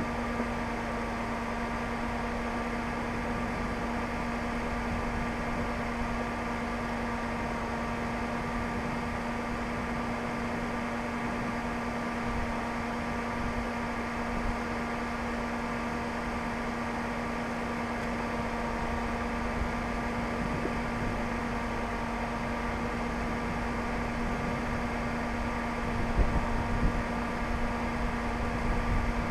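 Steady mechanical hum with a constant low tone, like an idling engine or a running fan, with a few low bumps of wind on the microphone near the end.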